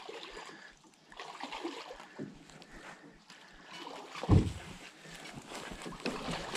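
Footsteps wading and splashing through a shallow rocky creek while a canoe is carried overhead, with irregular knocks and one heavier thud about four seconds in.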